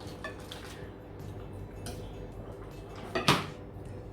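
Faint clinks and knocks of dishes and cutlery at a meal, with one louder clatter about three seconds in, over a faint steady hum.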